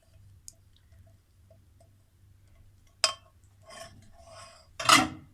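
Kitchen dishes and utensils clinking. A sharp click comes about three seconds in, then a short scraping rustle, and near the end a louder clink or knock with a short ring.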